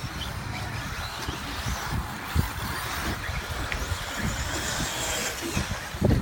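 Electric RC off-road buggies racing on the track, a steady high motor whine and tyre noise. Irregular low rumbling thumps run throughout, loudest near the end.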